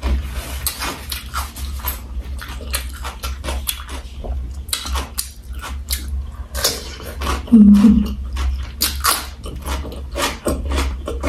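Close-miked chewing and wet mouth sounds: a run of sharp smacks and clicks, with a brief low hum about two-thirds of the way through as the loudest moment.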